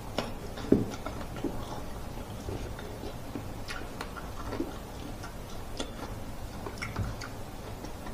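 Close-up mouth sounds of eating: chewing grilled smoked pork with irregular small wet clicks and smacks, and a louder knock about a second in.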